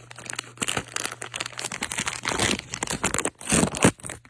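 Packaging crinkling and rustling with scattered clicks as a coiled adapter cable is handled, louder in two stretches about two and three and a half seconds in.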